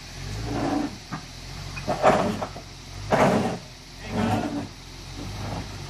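Jeep Wrangler TJ crawling up a rock ledge, its engine running low and steady under five or six short bursts of scraping and knocking, about one a second, as the tyres and underbody work over the rock. The loudest bursts come about two and three seconds in.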